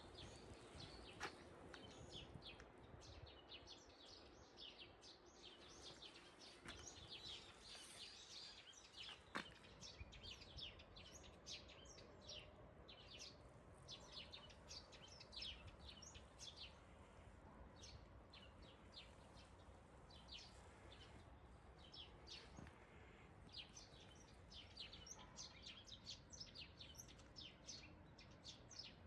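Faint small birds chirping, many short high calls in quick succession, with a few faint clicks.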